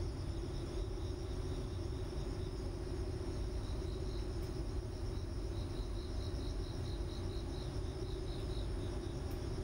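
Crickets chirping in a steady run of about four pulses a second, over a low, steady background rumble.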